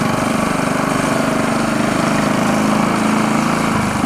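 Mini bike's small engine running steadily at cruising speed.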